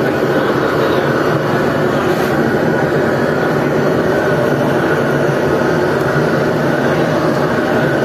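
Gas-fired cremation furnace running at full burn: a loud, steady rushing noise with a faint low hum underneath, unchanging throughout.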